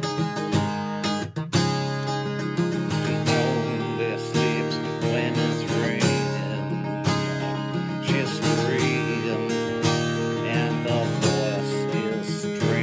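Acoustic guitar strummed in chords, a steady instrumental stretch of a slow pop-rock song.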